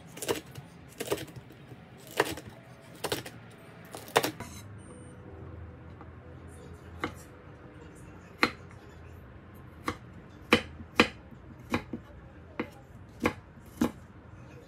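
Chef's knife cutting on a wooden cutting board: a run of sharp knocks as green chili peppers are sliced, then, after a pause of about two seconds, slower single knocks as garlic cloves are sliced thin.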